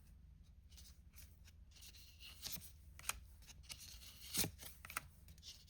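Trading cards being slid one behind another in the hand while flipping through a pack: faint, scattered soft swishes and light taps.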